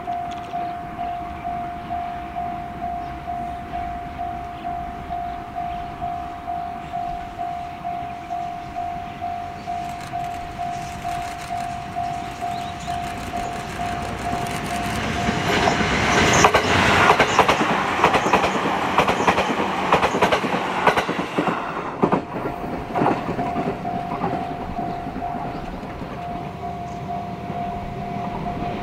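Level crossing warning bell ringing in even, repeated dings. About halfway through, a Sunzu Line electric train passes close by, its wheels clattering over the rail joints and covering the bell for several seconds. The bell keeps ringing after the train has gone.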